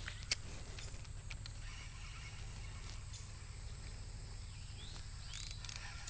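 Spinning reel being cranked as a lure is reeled in, giving faint light clicks, with one sharper click about a third of a second in, over a low steady rumble.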